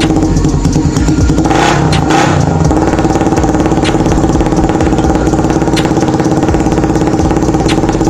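Small single-cylinder motorcycle engine fitted to a bicycle frame, running steadily at a constant speed.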